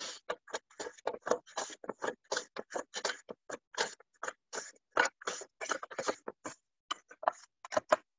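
A cucumber being shaved into ribbons with a blade: quick, short scraping strokes, about three or four a second, with a brief pause about seven seconds in.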